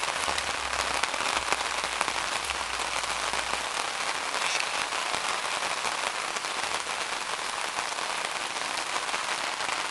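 Steady rain falling on surfaces during a tropical depression, a dense even hiss of drops. A low rumble under it drops away about four seconds in.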